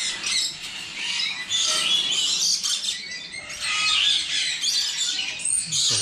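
Many caged parrots, conures and lories, squawking and chirping together in a dense, high-pitched, unbroken chatter.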